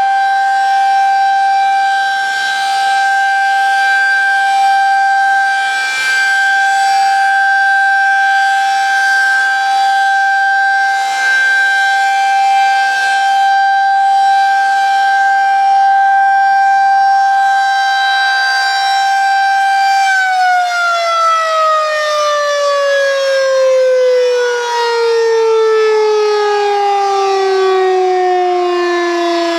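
Federal Signal 2001-SRN electromechanical tornado siren sounding a steady single tone during a test. About twenty seconds in it begins to wind down, its pitch falling smoothly and steadily.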